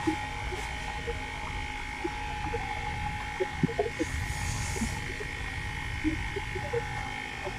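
Multimeter continuity buzzer sounding as a steady, unbroken tone with the probes held across a shorted point on the TV board: the tone signals a short circuit. A few light clicks are heard along with it.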